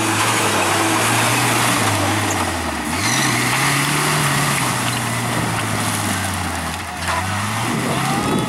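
Engines of lifted 4x4 pickup trucks revving hard as they spin their tyres through dirt and mud, the engine pitch rising and falling with the throttle.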